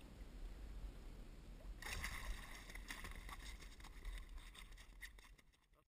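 Landing net scooping a flathead out of the lake, with splashing and water streaming and dripping from the mesh. It starts suddenly about two seconds in and fades away near the end. A low rumble of wind on the microphone runs under it.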